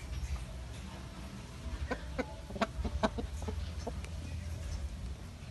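Aseel rooster clucking, a quick cluster of short calls near the middle, over a low steady rumble.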